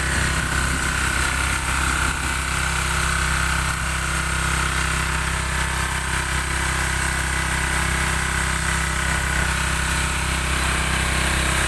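Boat engine running steadily at a constant speed, with a low even hum and a faint steady whine above it.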